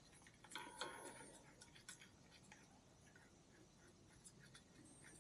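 Faint clicks and light metal scraping as a hand tool turns an adjuster on the motorcycle's clutch spring plate, with a brief squeak about half a second in.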